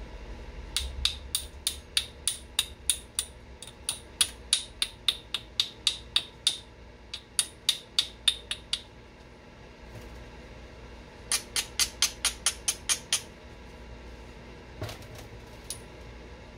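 Stone being knapped: a long run of sharp, evenly spaced clicking taps, about three a second, then a short pause and a faster run of about ten taps, with two faint single taps near the end.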